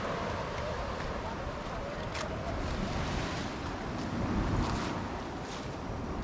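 Wind buffeting the microphone over the steady wash of sea waves against the rocky shore, with a few faint clicks.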